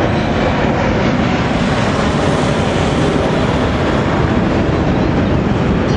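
Airplane passing overhead: a loud, steady rushing noise that swells slightly in the middle.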